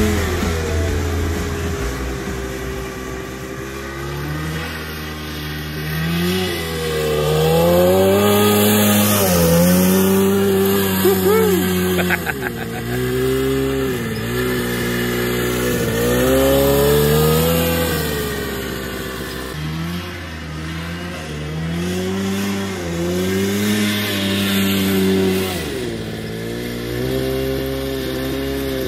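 Homemade racing lawn tractor's twin-cylinder snowmobile engine revving hard as it laps a dirt track, its pitch climbing and dropping with each throttle change. It grows louder as the machine comes near and fades as it pulls away, several times over.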